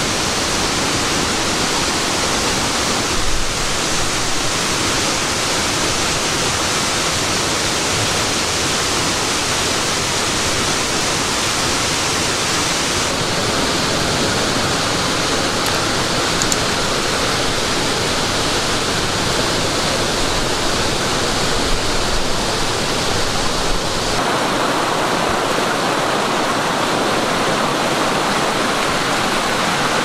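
Steady, loud rush of a cascading waterfall, its tone changing abruptly about halfway through and again near the end.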